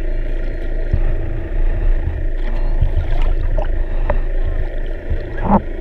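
Underwater ambience: a steady low rumble and hum, with a few short rising squeaks from a little past halfway, the loudest one just before the end.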